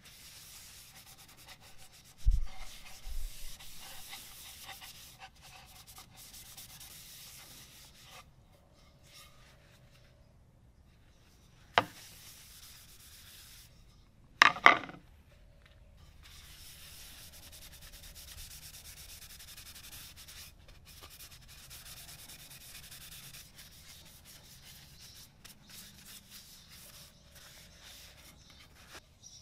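A cloth rubs and wipes over the faces of wooden ping pong paddles, working finish into the wood in soft, hissy strokes with short pauses. A few sharp knocks come as the paddles are handled on the wooden bench, the loudest a double knock about halfway through.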